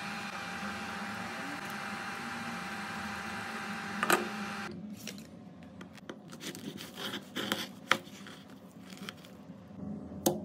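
Induction cooktop running under a lidded pan, a steady hum of its fan with a thin constant whine, and a click about four seconds in. It cuts off suddenly and gives way to scattered light knocks and rustles of food being handled on a wooden board, the loudest knock a few seconds later.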